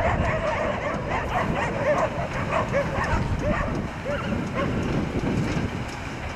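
A dog barking and yipping repeatedly, a few times a second, over the low rumble of a steam locomotive running light past on the track.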